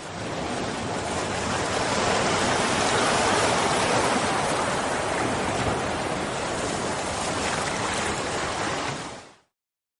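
Steady rushing noise of water, fading in at the start and fading out about nine seconds in.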